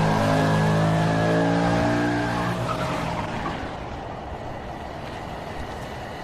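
A car engine's sound, a steady hum that fades to a quieter hiss about halfway through.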